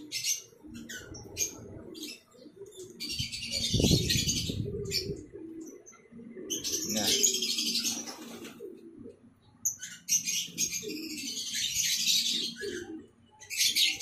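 Racing pigeons' wings flapping in three bursts of a second or two each, with pigeons cooing low underneath.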